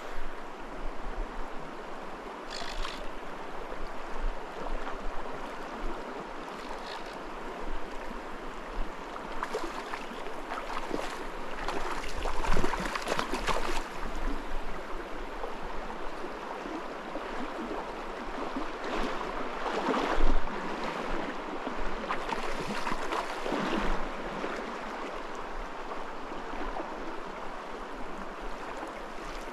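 Shallow, fast-running creek rippling close to the microphone, a steady rush of water with louder gurgling surges now and then.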